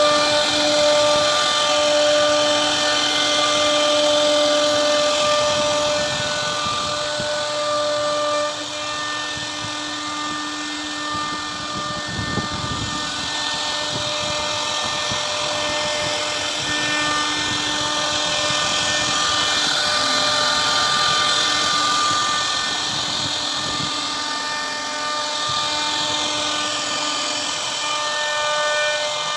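CNC router spindle running steadily as its cutter carves a wooden door panel, a machine whine made of several steady tones over a haze of cutting noise. The level dips slightly about eight seconds in.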